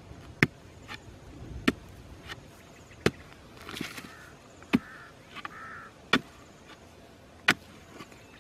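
A sharpened bamboo pole jabbed down into hard, dry earth, digging open a burrow: six sharp thuds about every second and a half, with lighter knocks between.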